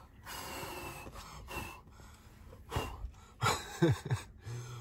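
A person's breath: a soft rush of air in the first second, then a few short breathy sounds with falling pitch.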